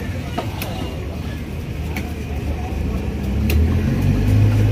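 A large knife chopping fish on a wooden block, a few sharp knocks, over a low engine rumble that grows louder near the end. Faint voices in the background.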